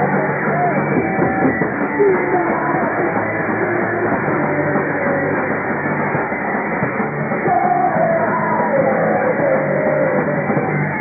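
Punk rock band playing live: distorted electric guitar, drums and vocals in a dense, continuous wall of sound, heard dull and muffled with no treble.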